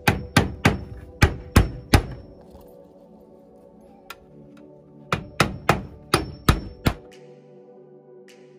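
Hammer driving roofing nails through metal drip edge into the wooden roof edge. There is a quick run of about six strikes, a pause of about three seconds, then a second run of about seven strikes for the next nail.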